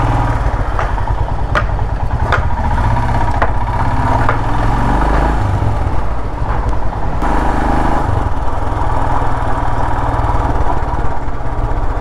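Motorcycle engine running as the bike rides along at low speed, heard from the rider's seat. A few short clicks come through in the first four seconds.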